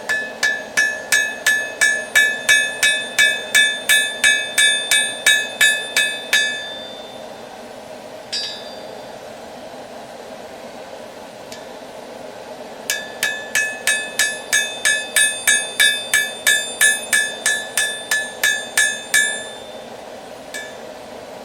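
Hammer blows on a steel anvil while a heated railroad spike is forged into a knife. Two runs of rapid, ringing strikes, about three a second and each several seconds long, come with a single strike between them. A steady low hum runs underneath.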